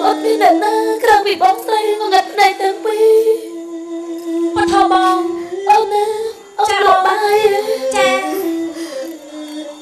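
Singing from a Cambodian lakhon basak (Bassac opera), with musical accompaniment. The voice bends and slides in pitch over a long held low note, which drops to a lower note about six and a half seconds in.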